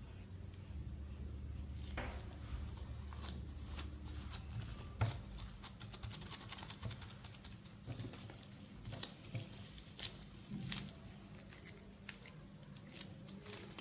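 Dough being handled on a silicone baking mat by hands in disposable gloves: scattered light taps, clicks and soft rubbing as it is cut, rolled and shaped, with one sharper knock about five seconds in.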